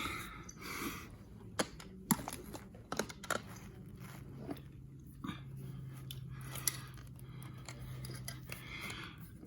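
Carpet edge being worked and tucked in by hand with a carpet chisel: irregular scraping and rustling of the carpet, with a few sharp clicks in the first few seconds.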